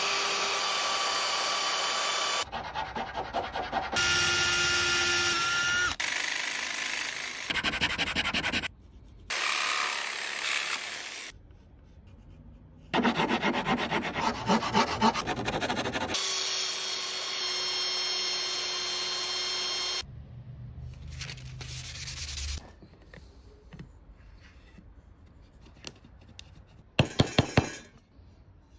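Woodworking tool sounds in a string of short, abrupt cuts: tools running with a steady whine, alternating with wood being rubbed, sanded and sawn in quick repeated strokes, and a quick run of sharp taps near the end.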